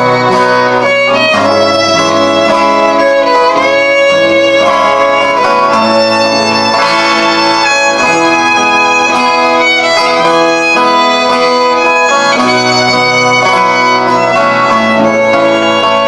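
Instrumental break between sung verses of a folk song: acoustic guitar accompaniment under a lead melody of long held notes with slides in pitch.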